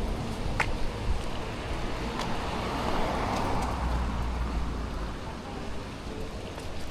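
Road traffic going by, with a steady low rumble and one car passing that swells and fades near the middle.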